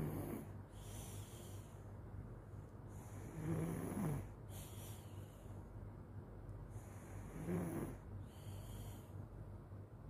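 A sleeping child snoring in slow, regular breaths: three low rasping snores about four seconds apart, each followed by a softer hissing breath out.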